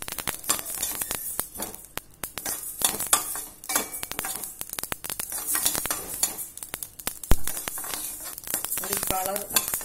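Steel spoon stirring mustard seeds and urad dal dry-roasting without oil in a stainless steel kadai: the seeds rustle and scrape against the metal, with many irregular clicks and light crackles as they heat.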